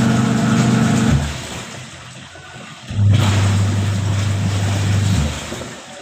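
Whirlpool Magic Clean washing machine's motor running in stretches, as in the wash agitation: a steady hum that stops about a second in, starts again about three seconds in, and stops just after five seconds.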